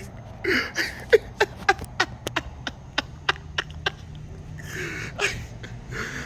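Hooves clopping on hard ground in an uneven walking rhythm, about three to four knocks a second, easing off after about three and a half seconds, followed by a short breathy sound.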